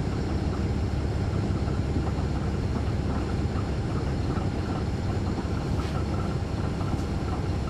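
2009 NABI 416.15 (40-SFW) transit bus heard from inside the cabin, its Caterpillar C13 ACERT diesel engine running steadily with a low, even drone and a few faint clicks.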